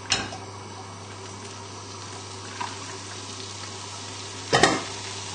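Steady hiss of oil in a hot frying pan. A short sharp clatter comes right at the start, and a louder burst of sizzling about four and a half seconds in as the boiled cabbage goes into the hot oil, after which the sizzle stays a little louder.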